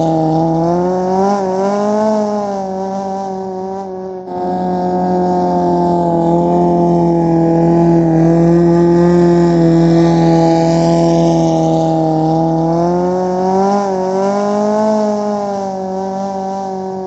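Longtail racing boat's engine running hard at high revs, a loud steady drone that wavers a little in pitch now and then. It breaks off for a moment about four seconds in and resumes.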